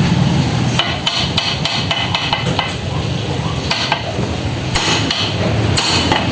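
Hammer striking metal on a car's front suspension parts: a string of sharp, ringing metallic clinks, irregular and fairly quick at first, then a few spaced blows later on.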